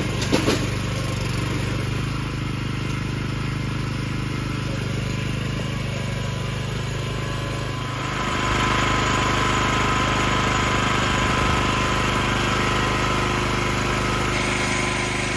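Small engine of an Agria walk-behind rotary tiller running steadily while its tines hoe the soil. About eight seconds in it grows louder, with a higher whine added.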